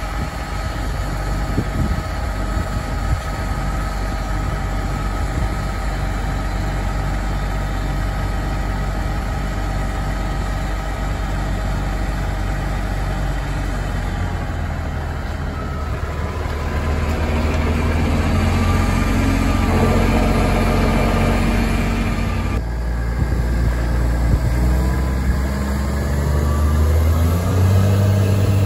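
2008 Case IH Puma 195 tractor's six-cylinder diesel engine idling steadily, then running louder and higher from about halfway through, and louder still near the end as the tractor drives.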